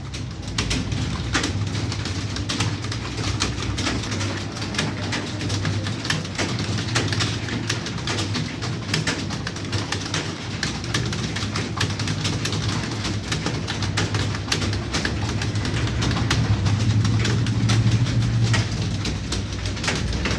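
Rapid, continuous typing on a computer keyboard: a dense, uneven stream of keystroke clicks, with a steady low hum underneath.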